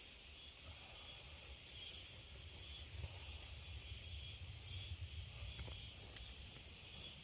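Steady chorus of insects chirring in several high-pitched layers that pulse slowly, over a low rumble in the middle and a sharp tick about six seconds in.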